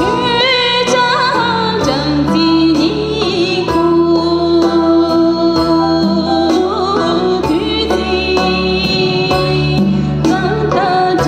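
A woman singing a slow, wavering melody into a microphone over backing music with a steady beat and sustained bass notes.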